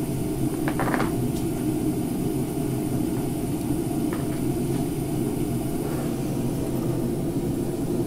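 Ridgid 18-volt hybrid forced-air propane heater running: a steady low rumble of the burner flame and the battery-driven fan blowing the heat. A brief knock about a second in.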